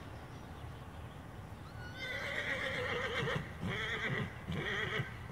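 A horse whinnying loudly, a wavering call that starts about two seconds in and breaks into about three pulses, calling after its companions being ridden away.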